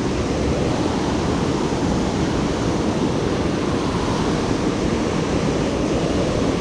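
Steady rush of water pouring over a low dam, a man-made waterfall.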